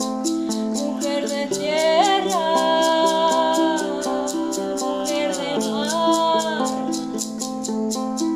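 A woman singing a long, wavering melodic line over held ukulele chords, with a steady fast rattle keeping time. The voice comes in about two seconds in and stops a little past the middle.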